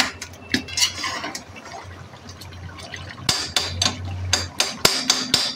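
Slotted metal spatula scraping and knocking against a black iron karahi as it pushes tomatoes aside through wet mutton-and-tomato stew. A few strokes come at first, then a quicker run of clinks and scrapes from about three seconds in.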